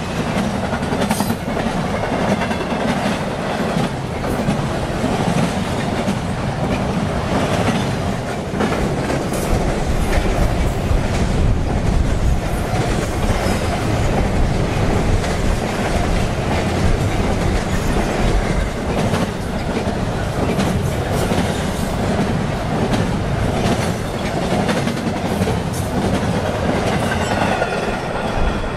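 Intermodal container freight train rolling steadily past at speed, its wheels clicking sharply over rail joints over a continuous rumble of cars and trucks.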